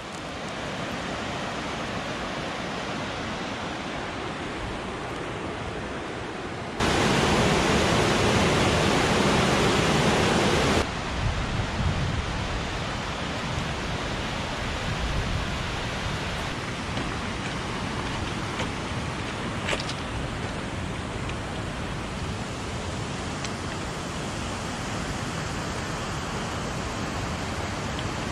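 Rushing water of a mountain river and stream, a steady hiss of white water, much louder for about four seconds in the middle, starting and stopping abruptly.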